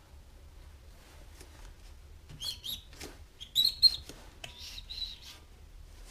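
Gun-cleaning rod and solvent-soaked patch being worked through an oil passage of a tractor crankshaft, squeaking against the metal in a few short high squeaks in the middle, while dirt is scrubbed out of the passage.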